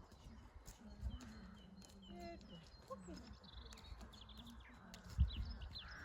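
Small birds chirping and trilling, over the dull low thuds of a horse's hooves walking on the lunge, the loudest thud about five seconds in.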